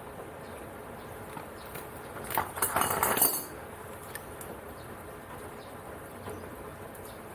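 A brief cluster of metallic clinking and rattling, about a second long, starting a little over two seconds in, over a steady background hiss.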